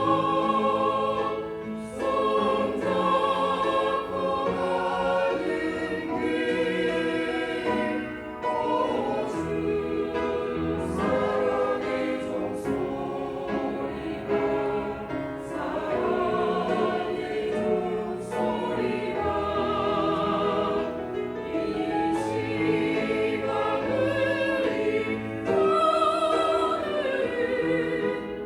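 Church choir singing a Korean gospel anthem, many voices holding long notes with vibrato in phrases broken by short breaths.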